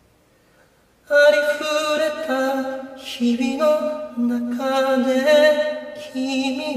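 Music: after about a second of near silence, a slow song resumes with long held notes that step from one pitch to the next.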